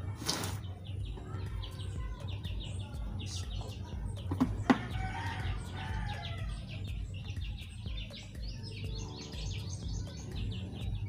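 A rooster crows about five seconds in, over a steady run of short, high chirps from birds.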